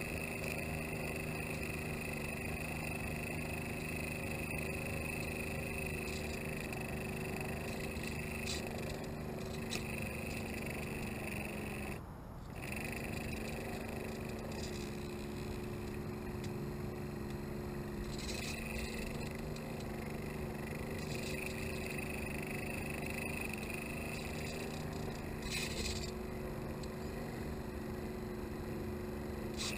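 Radio-controlled canoe's small electric drive motor running at a steady speed, a buzzing hum. It cuts out for a moment about twelve seconds in, then picks up again.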